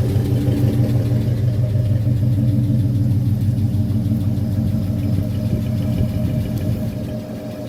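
1972 Ford truck's engine idling steadily on a cold start, its level dipping briefly near the end.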